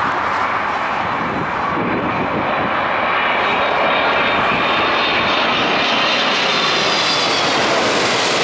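Airliner passing low overhead, its engines making a continuous rush with a faint high whine that grows louder and brighter as it comes closer.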